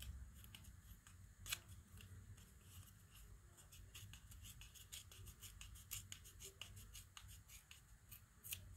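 Faint handling of a small paper cutout: fingertips picking at its edge, giving scattered light paper clicks and rustles, one sharper click about a second and a half in.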